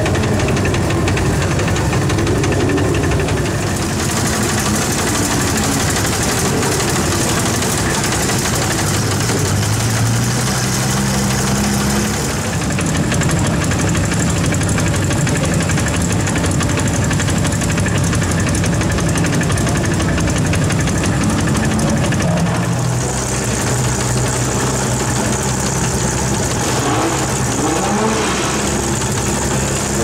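Buckle GT Lightweight sports coupe's engine idling steadily, its idle speed shifting up and down a little a few times.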